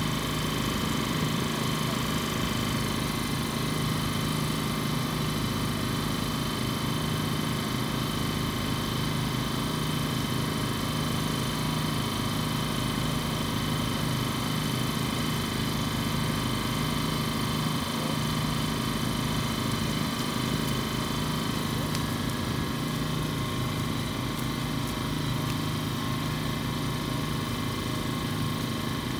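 An engine idling steadily, an even hum that holds the same speed throughout.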